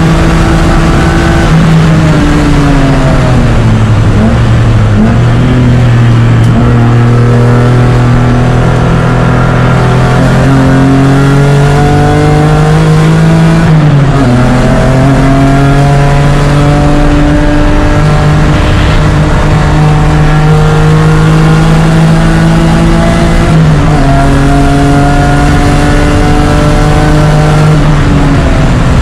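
BMW E36 race car's engine heard from on board, pulling hard on track. Its pitch climbs slowly through each gear and drops quickly at each shift or braking point, about four times.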